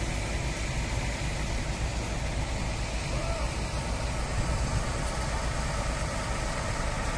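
Kobelco hydraulic excavator's diesel engine running steadily, a low even drone.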